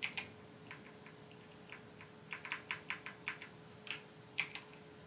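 Keys on a computer keyboard being tapped in short, irregular runs, with a quick flurry of keystrokes about two to three and a half seconds in: numbers being typed into settings fields.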